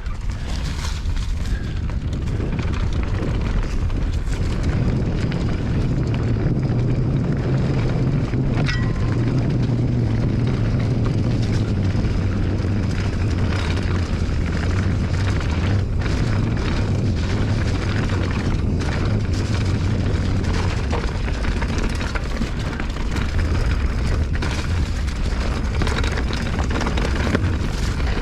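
Steady wind rumbling across the microphone of a bike rider on a rough trail, with scattered clicks and rattles from the bike.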